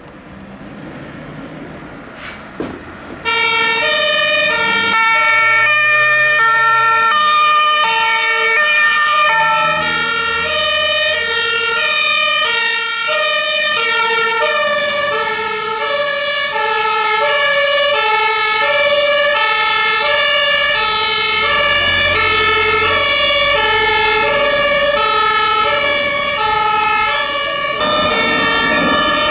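German two-tone emergency-vehicle siren (Martinshorn) on fire engines, alternating steadily between a high and a low note. It comes in loudly about three seconds in, after a quieter start.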